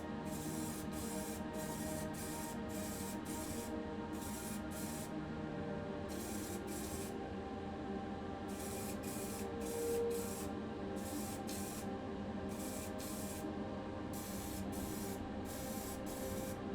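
Aerosol can spraying primer in short repeated hissing bursts, about two a second, with a few brief pauses between runs.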